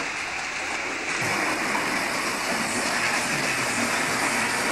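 Steady whirring rumble of model trains running on the layout's track, with background hall noise.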